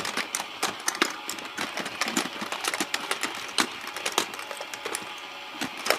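Toy fishing game running, its plastic mechanism clattering in a fast, uneven stream of clicks.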